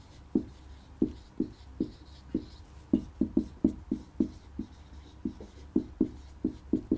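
Marker pen squeaking on a whiteboard as a phrase is written out: a run of short, uneven strokes, about three or four a second.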